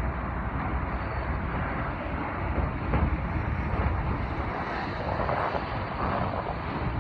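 Steady low engine rumble with a noisy hiss over it, swelling a little louder a few times.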